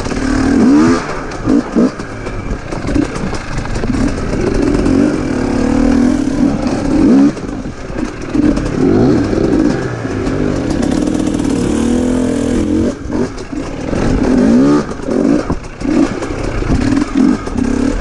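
Enduro dirt bike engine revving up and down in repeated short bursts of throttle, with dips between bursts, as it climbs a rocky creek bed. Clatter and knocks from the bike over the rocks come through.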